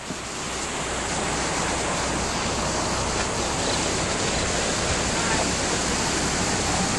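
Flood-swollen river rushing past the washed-out road bank: a steady, even noise of fast-flowing floodwater, rising in over the first second.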